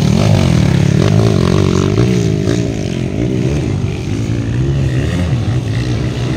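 Kawasaki KLX four-stroke single-cylinder dirt bikes racing, several engines overlapping and revving up and down through the gears. The sound is loudest at first as a bike passes close, and eases a little after about three seconds.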